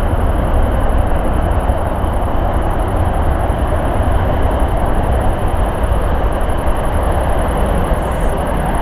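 Jet airliner taking off, its engines at takeoff thrust making a loud, steady noise with a deep low rumble.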